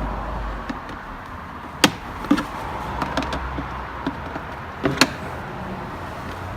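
Sharp plastic clicks and knocks from a car's glove box being opened and released to reach the cabin filter behind it, with two loud snaps, one about two seconds in and one about five seconds in, over a steady low background noise.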